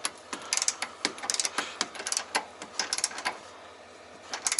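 Ratchet head of an Etork 1/2-inch drive torque wrench clicking in short runs as a bolt is tightened toward its 65 ft-lb setting, with one more run of clicks near the end.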